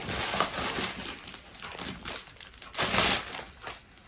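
Rustling and crinkling of a shopping carry bag being handled and pulled open by hand, in irregular bursts, the loudest about three seconds in.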